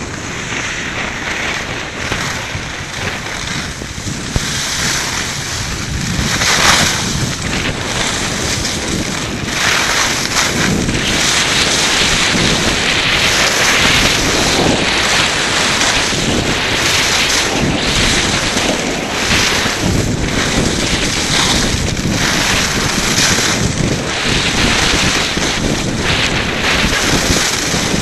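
Wind buffeting a helmet-mounted camera's microphone during a fast run down a ski slope, with the rush and scrape of edges sliding over crusty snow underneath. The rushing gets louder about six seconds in as speed builds.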